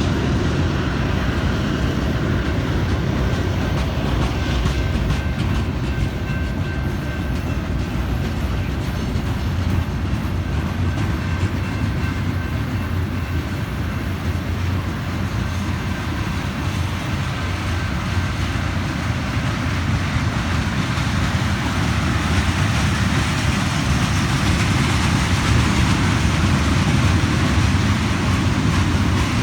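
Freight cars of a manifest train rolling past: a steady, loud rumble of steel wheels on rail with a clickety-clack over the rail joints. A faint thin high tone comes and goes in the first half.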